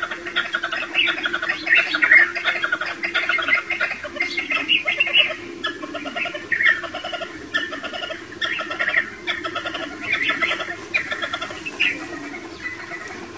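Chukar partridges calling: overlapping runs of fast, repeated clucking notes that go on without a break.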